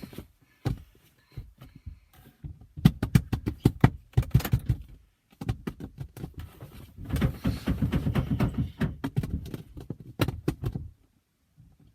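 A rapid, irregular series of thumps and knocks in a small room, coming in two dense flurries and dropping out briefly near the end.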